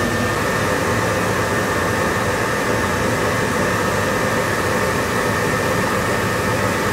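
Steady whirring hiss of machinery inside a deep-diving submersible's cabin, fan-like, with a faint high whine held steady over it.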